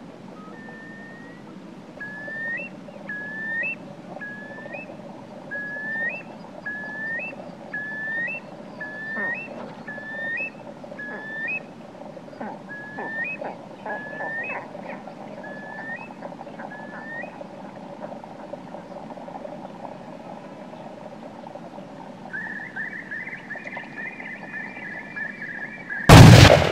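Forest ambience with a bird whistling short repeated calls, each flicking upward at the end, then one longer held whistle. Near the end comes a single loud shotgun blast, the loudest sound.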